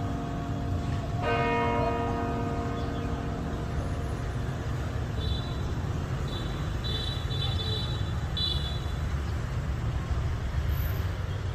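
St. Joseph's Cathedral church bell struck once about a second in, over the dying ring of the previous stroke, its many overtones fading away within a couple of seconds. A steady low rumble of street traffic runs underneath, with a few short high beeps midway.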